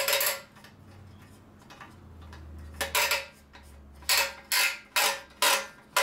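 Handle of a toaster-oven baking tray being screwed onto the tray: a run of short, really loud rasping bursts, one at the start and then coming every half second or so through the second half.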